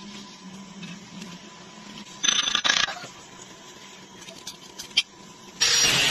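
Scattered metallic clinks and a brief clatter of steel plate being handled. Near the end a loud, steady power tool starts up with a high, slightly wavering whine.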